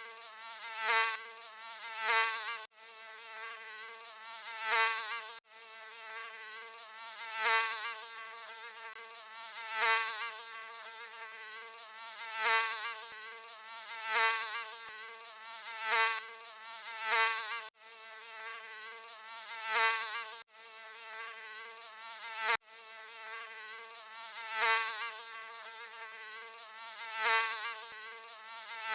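Mosquito buzzing: a high, thin, wavering wing whine with many overtones, swelling loud about every two and a half seconds as if flying past close by, then fading back. A few abrupt split-second dropouts break it where the recording is looped.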